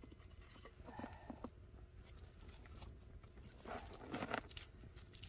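Faint, scattered knocks and scrapes of dry split firewood pieces being picked up and handled.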